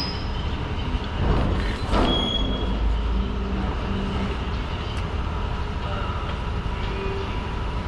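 Steady low rumble of a running heavy vehicle, with two brief louder noises about one and two seconds in.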